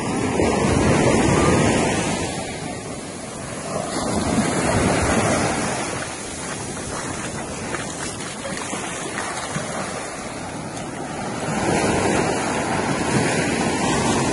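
Waves washing onto a beach, the surf swelling and falling three times, with wind buffeting the microphone.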